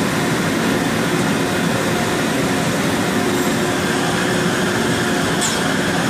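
Citizen A20VII CNC Swiss-type lathe running under power: a steady machine hum and hiss with a few faint steady tones and no distinct strokes. A faint, brief high chirp comes near the end.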